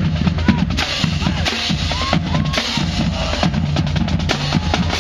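Music with a prominent drum kit beat: steady bass drum and snare hits.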